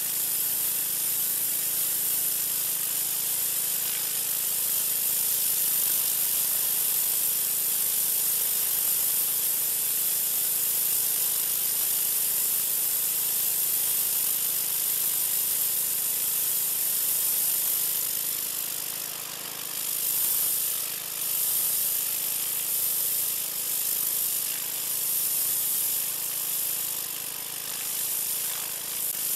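Troy-Bilt 2200 psi pressure washer with an oscillating tip spraying water onto concrete: a steady high hiss of the spray over the faint drone of the washer's engine. From about two-thirds of the way in, the spray wavers and dips in loudness.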